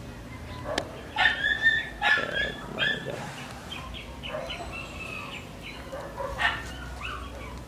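Domestic animals calling: a run of short, pitched calls about a second in, and another a little after six seconds in, over a steady low rumble.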